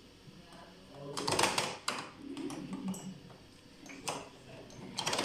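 Programme selector dial of an Indesit WIUN82 washing machine being turned by hand, giving a few irregular clicks and knocks. The loudest come in a cluster about a second in, with single clicks around two and four seconds in.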